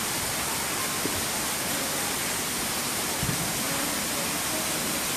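Steady, even rushing noise, with a single soft low thump about three seconds in.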